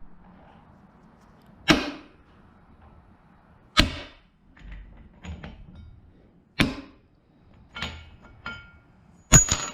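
A series of about six sharp knocks and clanks at uneven intervals, like hard objects striking each other in a workshop. The last one, near the end, rings briefly with a metallic tone.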